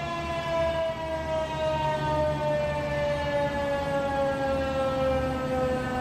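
Federal Signal 2001-SRN electromechanical warning siren winding down, its tone falling slowly and steadily as the rotor coasts to a stop at the end of a test.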